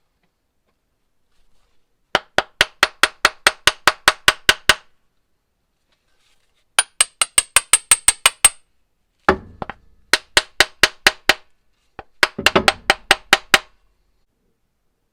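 A hammer striking repeatedly in four quick runs of sharp taps, about five blows a second. A high metallic ring sounds under the second run, and heavier thuds open the third and fourth.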